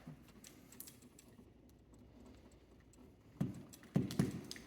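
Faint small clicks and scrapes of electrical wires and a wire connector being handled while wires are spliced together in a switch box, with a few louder short knocks near the end.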